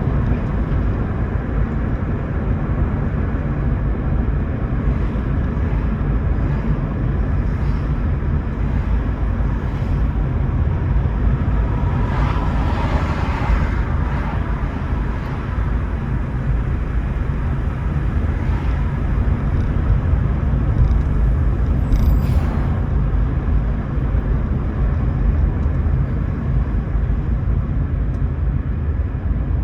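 Toyota Prius driving, a steady low road and tyre rumble. A swell of higher noise rises and fades about twelve seconds in, and a short sharp tick comes about twenty-two seconds in.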